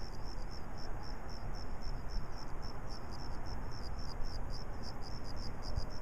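Crickets chirping steadily, about three high chirps a second, over a low steady background rumble.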